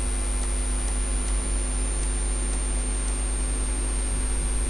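Steady electrical hum with hiss and a thin high whine from the recording setup, with about six faint mouse clicks in the first three seconds as points are placed on screen.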